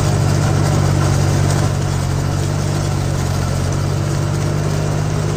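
Deutz-Fahr Agrolux 70 tractor engine running steadily under load, driving a rotary tiller that is working the soil.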